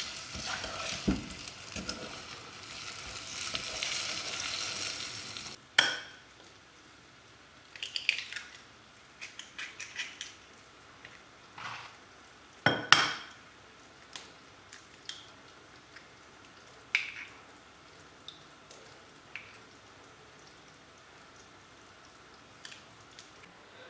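Honey, butter, sugar and spices melting and sizzling in a stainless steel pot on a gas burner, stirred with a wooden spoon, a steady hiss that cuts off about six seconds in. Then eggs are cracked on the rim of a small glass bowl and separated: scattered taps and clicks of shell on glass, the sharpest about thirteen seconds in.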